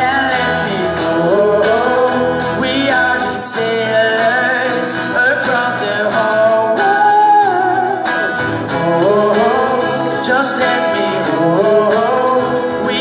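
Two acoustic guitars strumming under male singing, a live duo playing a pop song.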